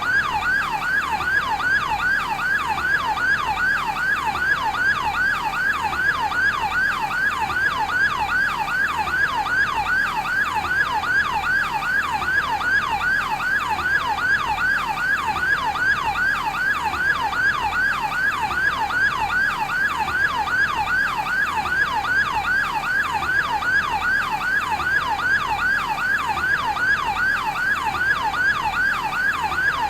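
Yelp siren of a fire brigade's advanced life-support ambulance, a rapid, unbroken warble of rising sweeps at about three a second.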